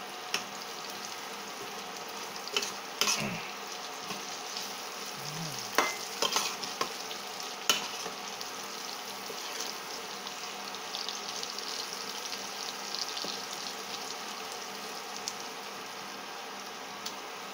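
Chopped garlic sizzling gently in coconut-based cooking oil on low heat in a stainless steel frying pan, a steady hiss. A metal spoon stirs it, clinking and scraping against the pan several times in the first eight seconds.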